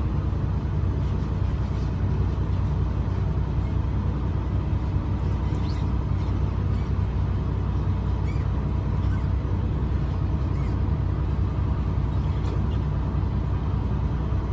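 Boat engine running with a steady low drone, heard from on board, with a few faint high chirps.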